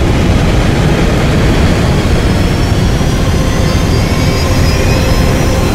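Loud, steady jet-like roar of supersonic racing vehicles speeding past, a film sound effect, with a faint high whine rising slowly in pitch in the second half.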